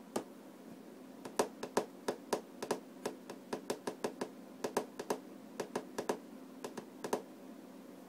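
A small parrot pecking and nibbling with its beak at a hard desk edge: a run of sharp, irregular clicks, two or three a second, that stop a little after seven seconds in. A faint steady hum runs underneath.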